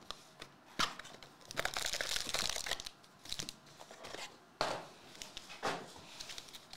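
A cardboard trading-card hobby box is torn open and handled, and its foil card packs crinkle as they are tipped out onto the mat. It comes as a series of sharp crackles and rustles, the densest patch about two seconds in.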